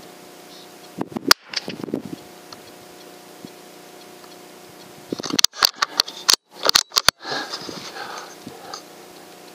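Sharp rifle shots: one report about a second in, then a quicker cluster of cracks and clatter from about five to seven seconds in. Each shot is loud enough to make the sound cut out for an instant.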